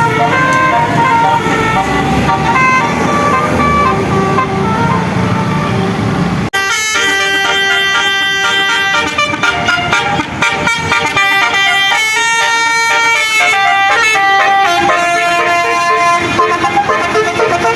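Basuri musical bus horn playing a melody of quick stepped notes over a low bus engine rumble. About six and a half seconds in it cuts abruptly to another horn tune, brighter and higher.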